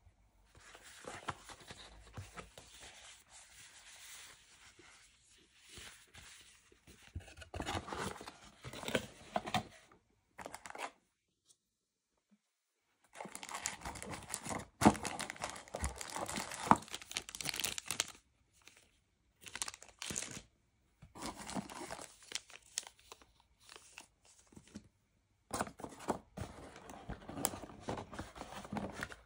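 Hands unpacking a cardboard box: cardboard sliding and scraping and packaging rustling and crinkling in irregular bursts. There is a pause of about two seconds a third of the way in, and a couple of sharp knocks of cardboard just after it.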